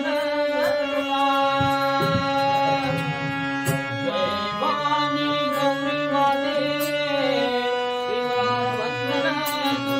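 Harmonium playing a held, slowly moving melody, with strokes on a pakhawaj barrel drum and small hand cymbals keeping time: devotional bhajan accompaniment.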